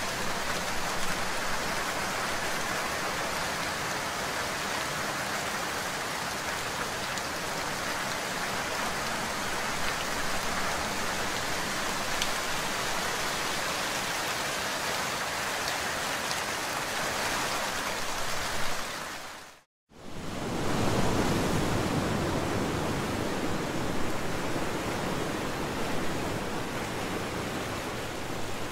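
Steady rain falling on broad leaves, a dense, even hiss of drops. About two-thirds of the way through it cuts out for an instant and gives way to waves on the sea, a steady wash with a deeper rumble.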